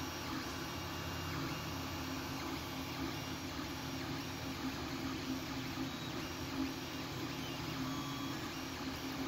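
Creality Ender 3D printer printing. Its fans whir steadily while the stepper motors add short tones that change pitch as the print head moves.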